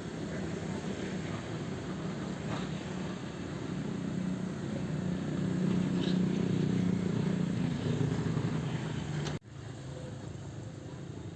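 Sumitomo hydraulic excavator's diesel engine running under work load. It swells louder for a few seconds in the middle, then cuts out for an instant about nine seconds in before carrying on.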